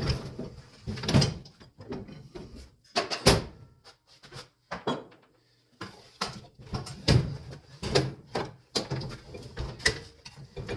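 Irregular knocks, clunks and short scrapes of a new miter chop saw being handled and turned around on a workbench while it is put together.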